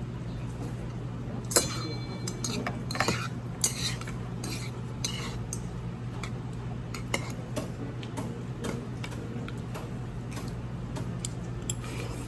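Eating utensils clinking and scraping against dishes during a meal. A ringing metallic clink comes about a second and a half in, then scattered lighter clicks, over a steady low hum.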